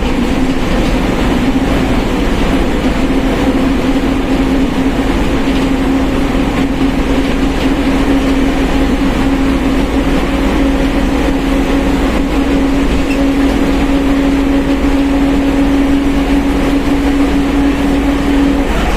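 Mercedes-Benz OF1721 bus running at a steady speed, with a steady whine from its differential over the engine and road noise; the whine's pitch creeps up very slightly.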